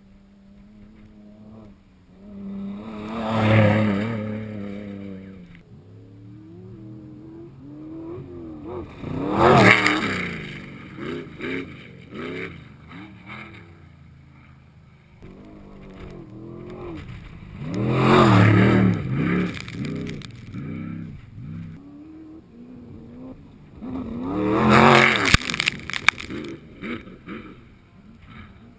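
Off-road race vehicles (trophy trucks and Class 1 cars) passing by one after another, four times. Each engine note rises to a loud peak and falls away as it passes, with engines revving more quietly in between.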